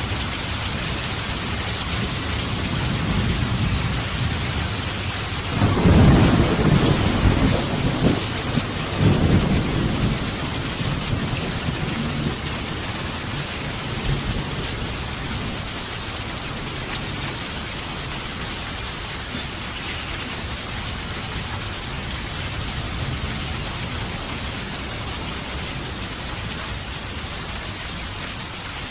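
Steady heavy rain with a thunderclap rumbling in about six seconds in, surging again a few seconds later and fading away under the rain.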